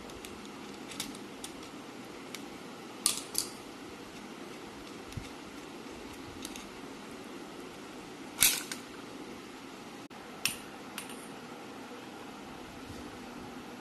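Scattered light clicks and clinks of small metal airgun parts and tools being handled, about a dozen, the sharpest about eight and a half seconds in, over a steady low hum.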